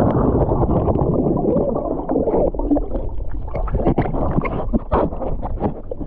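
Muffled water sloshing and splashing right at the microphone, with gurgling and many small splashes throughout.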